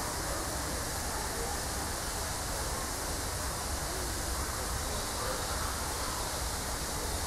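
Steady rushing background noise with faint voices now and then.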